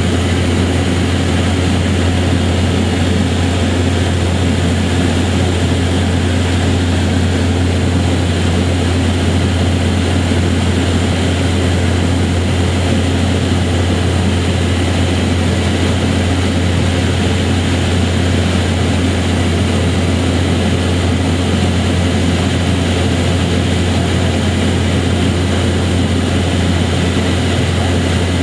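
Steady, unvarying droning noise with a strong low hum.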